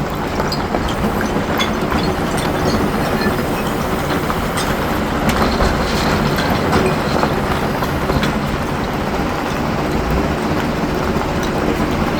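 Heavy diesel construction machine running steadily under load, with scattered sharp metallic clicks and clanks over its steady drone.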